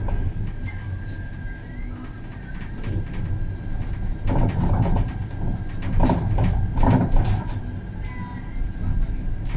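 Tram running along its rails, heard from the front of the car: a steady low rumble with a faint high whine, and a louder stretch of rattling and knocks about halfway through as the wheels run over the track junctions.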